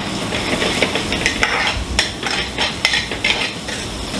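Curry sizzling in steel frying pans over the burners of a commercial gas range, a steady frying hiss broken by scattered sharp clicks.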